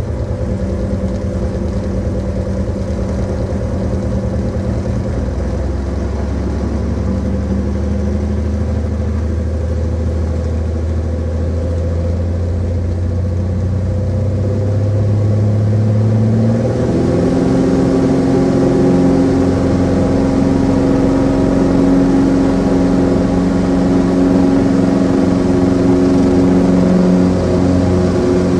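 Light airplane's engine and propeller heard from the cockpit, running steadily at low power. At about 16 to 17 seconds in the throttle is advanced, and the engine note jumps higher and gets louder, then holds at the higher power.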